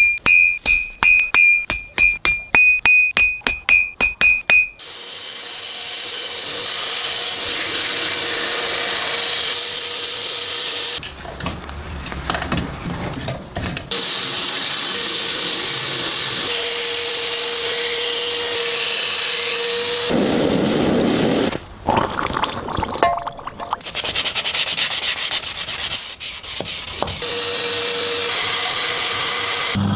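A fast run of hammer blows on hot steel, each ringing off the anvil with a high, clear tone. After about five seconds this gives way to long spells of steady grinding and sanding on the blade, shaping the bevels, in several separate passes that start and stop abruptly.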